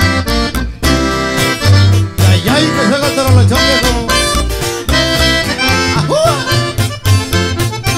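Live norteño band playing an instrumental passage: button accordion carrying the melody over a strummed twelve-string guitar and a plucked tololoche (upright bass) keeping a steady bass beat.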